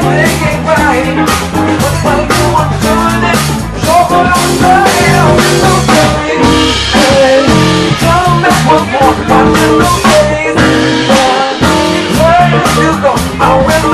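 Live band playing: a drum kit keeps a steady beat under guitar and bass.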